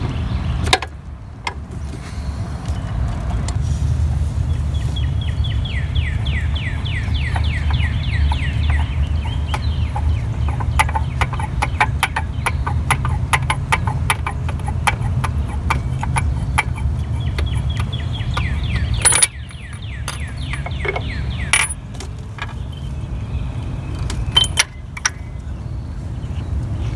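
Half-inch-drive ratchet clicking in several quick runs as it turns a 1-1/16 inch deep socket, loosening the oil pressure sensor on a Toyota 1MZ-FE V6. A steady low rumble sits underneath.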